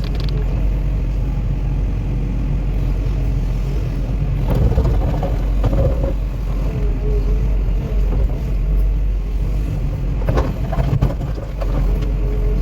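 Cat 316E excavator's diesel engine running under load with a steady low rumble and a wavering hydraulic whine, interrupted twice, about four and a half and ten seconds in, by brief louder spells of scraping and clattering from the machine at work.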